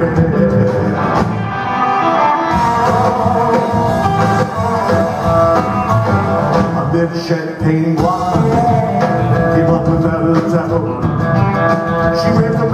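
Live rock-and-roll band music: a man singing while playing a hollow-body electric guitar, with the band behind him.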